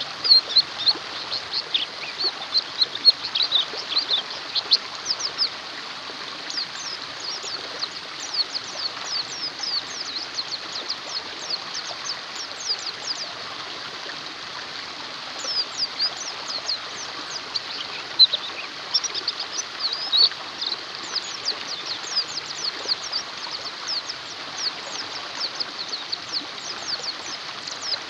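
White-eyes (pleci) singing, a fast run of high, thin twittering chirps with short breaks, over a steady rush of running water.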